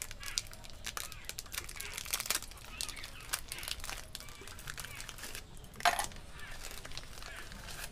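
Thin plastic Oreo biscuit wrappers crinkling and tearing as packets are ripped open by hand and the biscuits taken out, in a run of small rustles and crackles. One louder short sound stands out about six seconds in.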